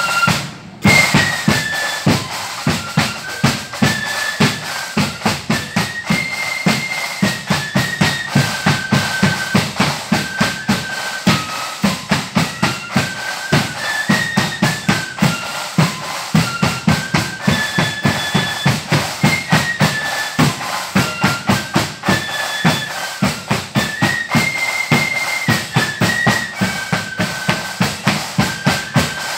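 Marching flute band playing a tune: flutes carrying the melody over a steady, regular drumbeat. The sound drops out briefly about half a second in.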